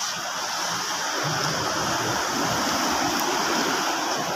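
Steady rush of seawater washing around the net, a continuous splashing hiss with no separate strokes.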